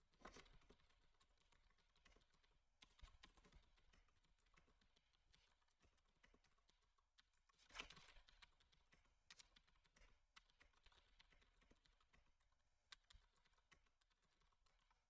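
Faint typing on a computer keyboard: scattered keystrokes, with a brief louder cluster about eight seconds in.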